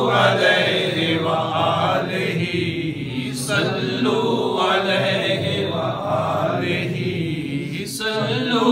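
A man chanting an Urdu naat unaccompanied, into a microphone, in long melodic phrases with short pauses for breath.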